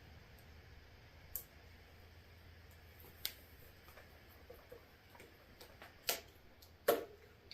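Scattered light clicks and taps of tools and parts being handled, a handful over several seconds with the two loudest near the end, over a faint steady hum.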